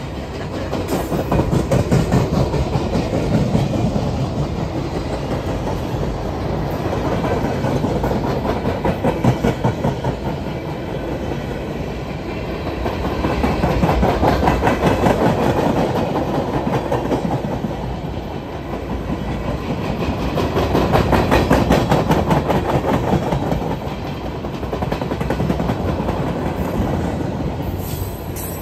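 Freight train of empty flatcars rolling past: a steady rumble with rapid clickety-clack of steel wheels over the rail joints. The sound swells and fades several times as the cars' wheel trucks go by.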